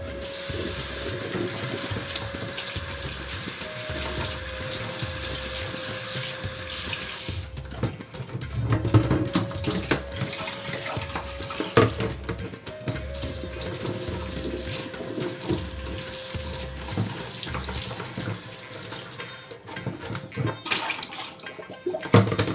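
Kitchen tap running into a stainless-steel sink as yardlong beans are rinsed in a plastic colander. The steady stream of water gives way twice to louder, uneven splashing and knocks as the beans are swished by hand and the colander is moved, the second time near the end.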